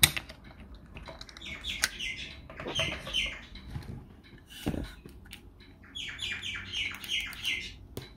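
Clicks and knocks of a 35 mm film cartridge being fitted and its leader threaded into a Kodak Retinette 1A camera's open back. Three runs of short high chirps sound alongside, the longest in the last few seconds.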